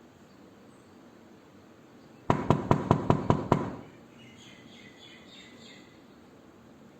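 Knuckles rapping fast on a wooden door: seven sharp knocks in about a second and a half, with a brief ring-out. Faint high chirping follows over a low hiss.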